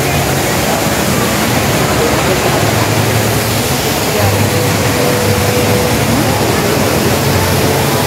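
Steady rushing roar of the Rain Vortex, a tall indoor waterfall falling through the dome, with faint voices beneath it.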